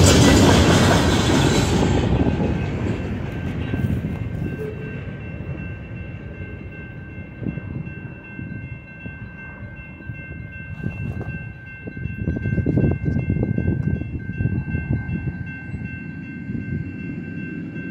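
Freight train cars rolling past on the rails at close range. The loud rumble of wheels on track falls off over the first couple of seconds as the end of the train goes by, leaving a fainter, uneven rumble as the train draws away.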